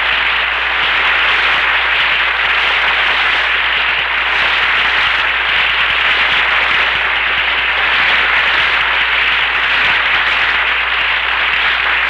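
Studio audience applauding steadily, a dense even clatter of many hands, heard through a band-limited 1950s radio transcription.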